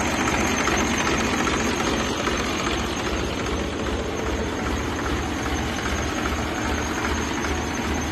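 TAFE 5450 Maha Mahan tractor's diesel engine running steadily, a low, even throb.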